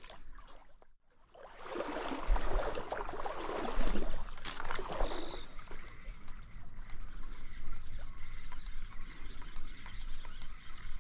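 Water sloshing and splashing in a trout stream, with a few dull knocks in the first half.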